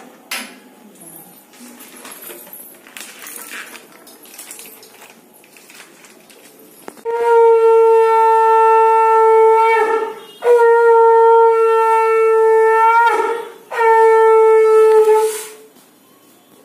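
Conch shell (shankha) blown three times in long, steady, horn-like blasts of two to three seconds each, the pitch falling off as each breath ends; sounded as part of the puja worship. About seven seconds of quiet room noise come before the first blast.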